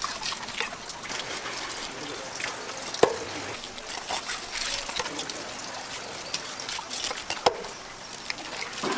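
A knife slicing fillets off a fish on a wet wooden cutting board: wet scraping and slicing, with two sharp knocks of the blade on the board, about three seconds in and again near the end.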